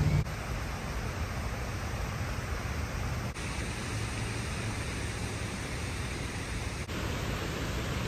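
Steady rushing outdoor background noise with a low rumble, its tone shifting abruptly about three seconds in and again near the end.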